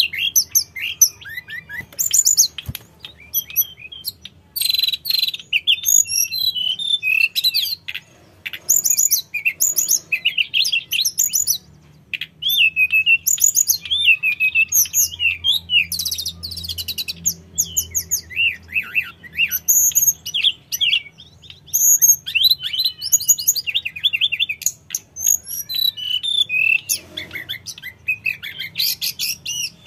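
Hill blue flycatcher (tledekan gunung) singing in full song: a quick run of varied high whistles and trills, phrase after phrase, with short pauses about twelve and twenty-one seconds in.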